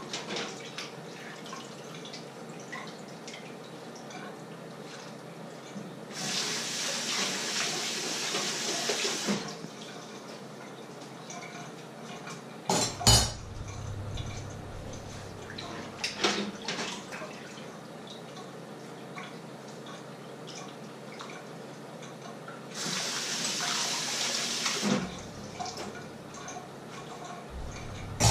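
Kitchen tap running into a sink in two spells of a few seconds, with dishes and pots clattering between them, the loudest clank about halfway through.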